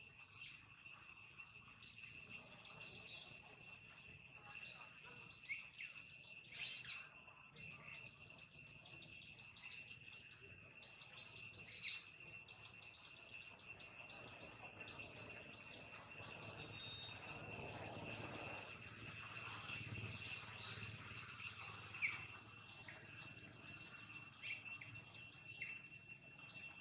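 Forest insect chorus: a steady high-pitched drone with a fast, even pulsing trill above it, and short bird chirps breaking in now and then.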